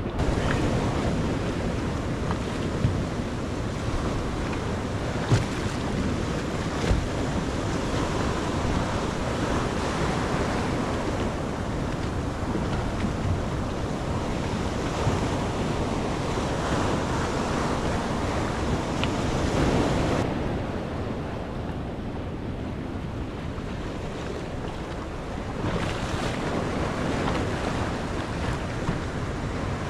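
Wind buffeting the microphone over the wash of sea waves, with a few sharp knocks in the first several seconds.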